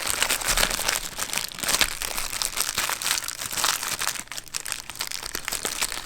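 Packaging bag crinkling as it is handled and pulled open to get the band out, a dense run of small crackles throughout.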